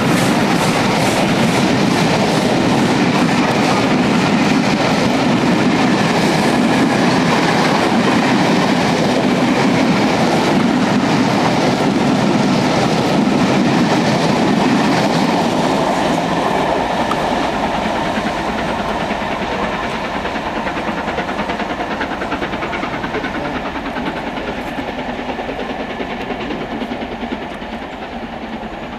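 Coaches of a steam-hauled passenger train, behind LMS locomotive 6233 Duchess of Sutherland, roll past close by, their wheels clacking over the rail joints in a steady rhythm. From about sixteen seconds in, the sound fades as the train draws away.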